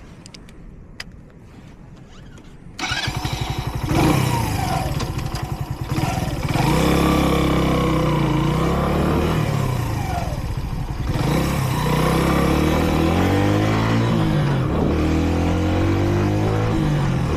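Kreidler Dice CR 125's single-cylinder four-stroke engine starting about three seconds in, revving briefly, then pulling away and accelerating. Its pitch rises and drops again through several gear changes.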